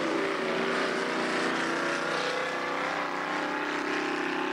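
Speedway sedan race car engines running hard on a dirt oval track, the engine pitch rising and falling as the cars rev through the turns.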